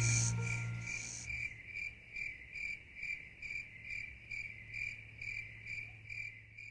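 Music fades out over the first second, giving way to a cricket chirping steadily at a little over two chirps a second, with a faint low hum beneath.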